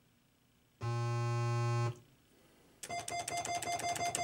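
Electronic sound effects from a Joker Poker coin-operated video poker machine. A steady, low buzzy tone lasts about a second, then, about three seconds in, a rapid run of short beeping ticks starts.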